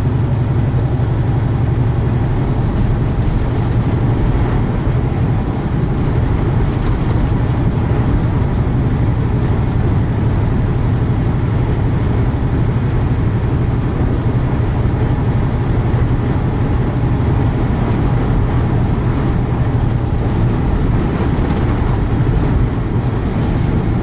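Steady drone of a semi-truck's engine and road noise heard inside the cab while cruising at highway speed, with a constant low hum.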